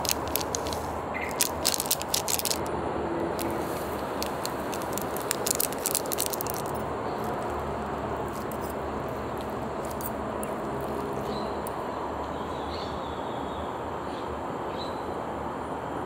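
Crinkling of a small plastic packet as bonito flakes are shaken out, then the clicking and scraping of metal spoons cutting into an okonomiyaki in a paper tray, in two short spells in the first half. A steady low background hum runs underneath, with a few faint high chirps near the end.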